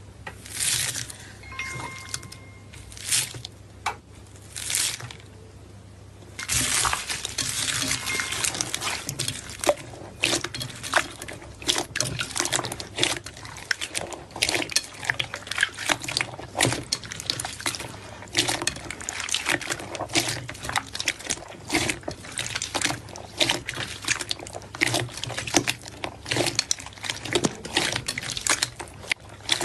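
Slime being squished and worked, making wet, sticky squelches and clicking pops. There are a few separate squelches at first, then from about six seconds in a dense, continuous crackle of small pops.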